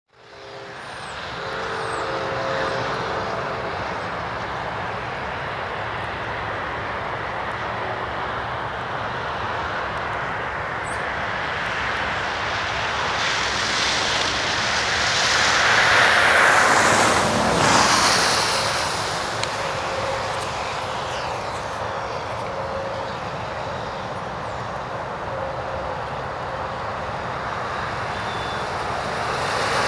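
Steady rushing noise of traffic on a wet day, with a vehicle passing about halfway through: the noise swells, then drops in pitch as it goes by.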